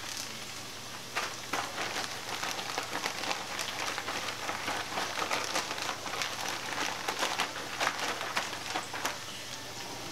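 Battered chicken of the woods mushrooms deep frying in a skillet of grease: a steady sizzle dense with crackling pops, thinning out near the end.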